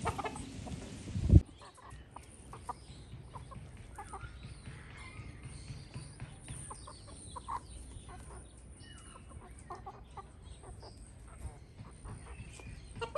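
Black chickens making short, soft clucks here and there as they are hand-fed. Just before the clucking starts there is a brief loud thump about a second in.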